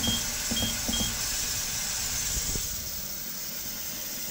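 VEVOR digital ultrasonic cleaner running, a steady hiss, while its control panel gives a few short beeps as the timer buttons are pressed in the first second.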